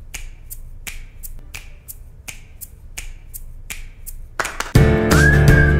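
Finger snaps in a steady rhythm, about two or three a second, as the intro of a music track. Near the end a full backing track comes in loudly, with a deep bass and a single high melody line.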